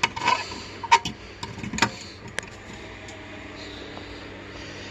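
A few sharp knocks and clinks of hard objects being handled and moved about in a cluttered closet, spread over the first couple of seconds, then a faint steady background hum.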